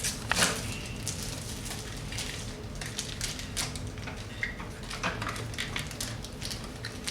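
Irregular crinkling and small clicks of toy packaging and plastic pieces being handled as a blind bag is opened, with a sharper click about half a second in.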